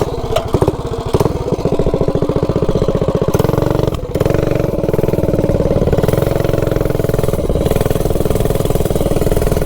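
Minibike's stage 3 single-cylinder clone engine running hard under throttle, pulling up to high revs with a brief dip about four seconds in, then held near the top. The top end, which the rider feels is flat, he suspects is running lean on its jetting.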